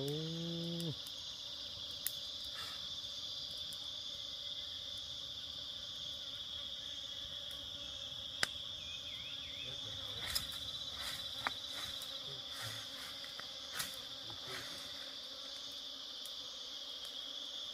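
Steady high-pitched drone of a jungle insect chorus, unbroken throughout, with a few sharp clicks or taps scattered through it.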